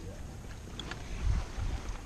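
Wind buffeting the microphone in low, uneven gusts, with a few faint light ticks about a second in.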